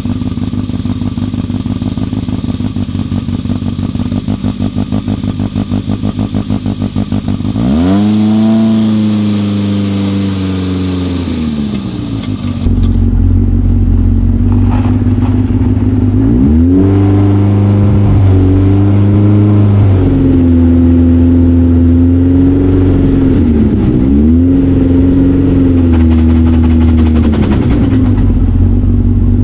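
Polaris RZR side-by-side engine running steadily, then revving up and easing back down about eight seconds in. From about thirteen seconds in it is louder, its pitch rising and falling again and again as the throttle is opened and closed.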